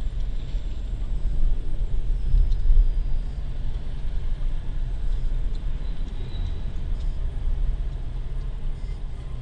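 Low, steady rumble of a car's engine and road noise heard inside the cabin as the car pulls away from a stop and gathers speed, swelling a little about two seconds in.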